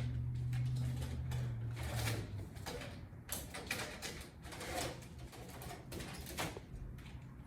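Decorative ceiling tile being handled and positioned against a drop-ceiling grid: a run of short rustles and light knocks. A low steady hum plays during the first two seconds or so.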